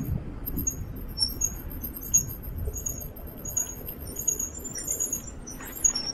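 Bicycle rolling over rough, cracked pavement: a steady rumble of tyres and road with wind on the microphone, and repeated high-pitched chirping above it.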